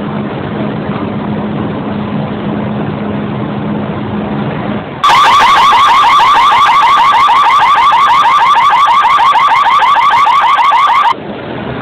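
Car alarm going off with a loud, fast-repeating rising chirp, starting about five seconds in and cutting off suddenly some six seconds later. Before it there is a steady low hum.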